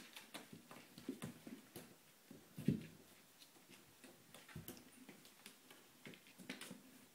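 Kittens' paws batting and scratching at a bathroom door and the gap beneath it: scattered light taps and scrapes, with one louder soft thump a little before halfway through.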